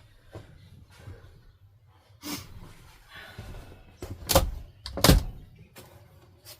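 A series of knocks and thuds in a small room, the two loudest about four and five seconds in.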